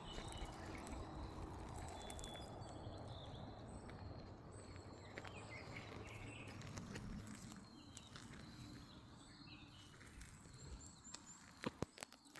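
Faint outdoor ambience: small birds chirping in short high calls over a low steady hiss, with a few sharp clicks a little before the end.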